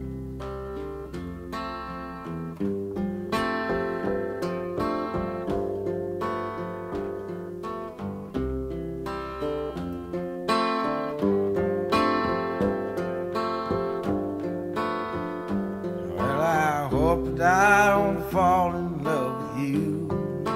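Slow song intro on strummed acoustic guitar with low bass notes underneath, the chords changing at an even pace. Near the end a wavering higher melody line rises over it for a few seconds.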